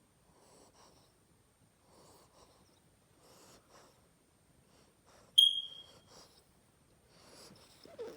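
A sleeping pet snoring softly, one faint breath about every second and a half. About five seconds in there is one brief, loud, high-pitched squeak that fades quickly.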